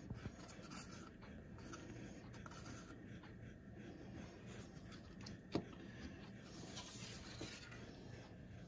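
Faint rubbing and handling sounds of gloved hands and a small plastic paint cup, dabbing paint onto a wet epoxy panel. One sharp click comes a little past halfway, over a steady low room hum.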